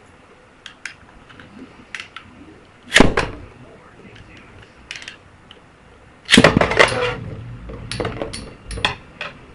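Beyblade spinning tops in a hard plastic stadium: a loud clack about 3 seconds in and a longer loud clatter a little past 6 seconds, with scattered sharp clicks of the tops striking each other and the stadium wall.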